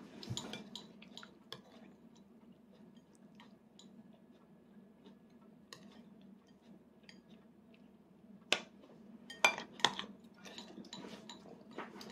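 A small child eating: quiet chewing with scattered light clicks, and a few sharper taps of a spoon on a plastic plate about eight to ten seconds in, over a faint steady hum.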